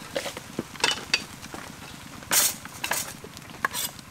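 Metal spoon clinking and scraping against a glass bowl as a thick mixture is stirred, with scattered utensil clinks and one louder, brief scraping noise about two seconds in.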